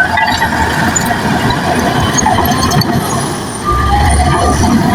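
Bulldozer working, its diesel engine running steadily under load with scattered short high squeaks. The engine's low rumble grows louder about three and a half seconds in.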